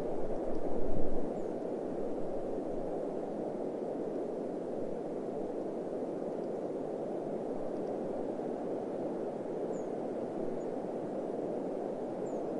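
Steady desert wind, a dull even rush of noise, with a brief louder low rumble about a second in.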